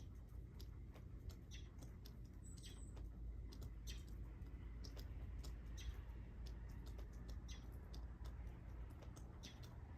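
Faint, irregular ticks and clicks scattered over a low, steady rumble, with one brief high chirp about two and a half seconds in.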